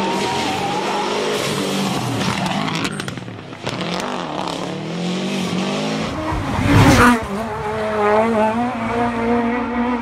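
Rally car engines at full throttle, the revs climbing and falling through gear changes as the cars go by at speed. There is a dip in level around three to four seconds in and a short, loud peak about seven seconds in as a car passes close.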